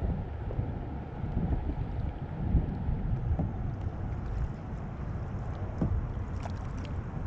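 Wind rumbling on the microphone during kayak paddling, with a few faint short splashes from the paddles.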